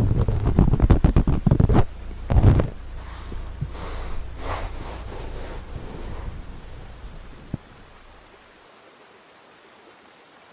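Close, loud scratching and rubbing on a 3Dio binaural microphone's ear, as an ear pick works it, for about two seconds with one more burst shortly after. It thins out into softer swishes and a single click, then gives way to a faint steady hiss of background nature ambience.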